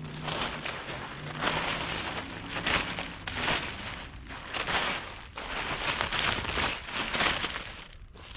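Footsteps crunching through dry leaves and brush, a step about every second.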